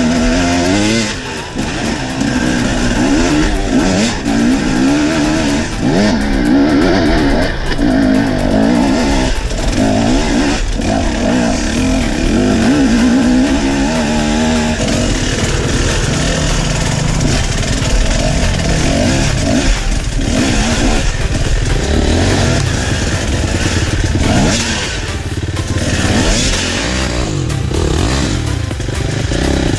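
Dirt bike engine under way off-road, its revs rising and falling over and over as the throttle is worked.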